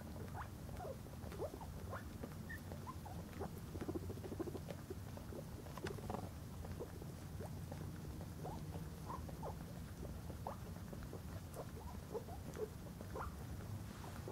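A Chihuahua licking a guinea pig: quick, soft wet licks and mouth smacks, with the guinea pig's short squeaks and chirps scattered through.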